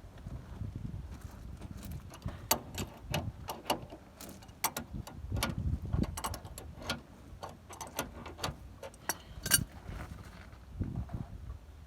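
Irregular sharp metallic clicks and knocks of a wrench working on the steering rack's mounting bolt, the loudest knock near the end.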